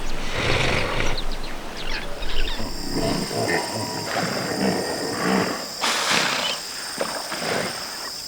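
Hippopotamus grunting and honking in a run of repeated rough calls, loudest at first and fading toward the end. A steady high-pitched drone joins about two seconds in.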